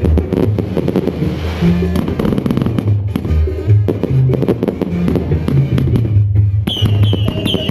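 Fireworks crackling and popping over background music with a bass line. About seven seconds in, a high-pitched whistling firework starts, warbling in quick repeated pulses.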